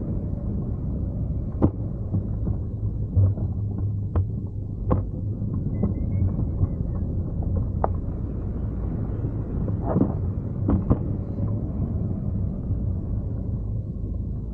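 Wind rushing over the microphone of a camera carried on a hang glider in flight, a steady low rumble, with a few short sharp clicks scattered through it.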